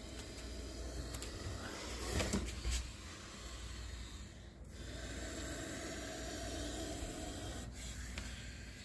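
Egyptian cobra hissing, with two dull knocks a little over two seconds in.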